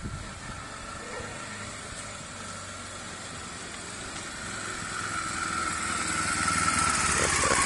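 Cruiser motorcycle's engine running as the bike rides closer, growing steadily louder over the last few seconds as it approaches.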